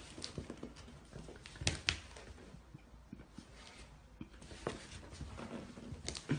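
Cat pawing and scratching at tissue paper and cardboard in a box: soft rustling and scratchy taps, with a few sharper knocks about a second and a half in and again near the end.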